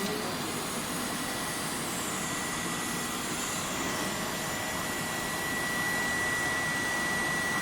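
Automatic TIG pipe welding machine running: a steady, even hiss with a constant high-pitched whine.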